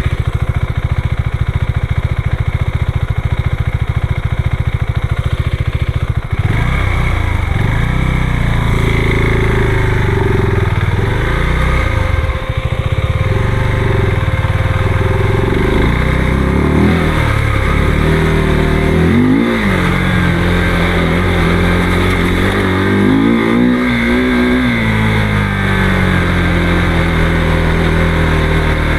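Motorcycle engine running: a steady low-rev chug for about the first six seconds, then the revs rise and fall again and again with the throttle.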